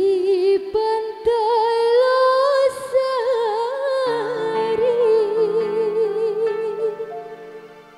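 Live band music: a lead melody line held on long notes with wide vibrato over sustained keyboard chords, with lower chord notes joining about halfway through before it fades near the end.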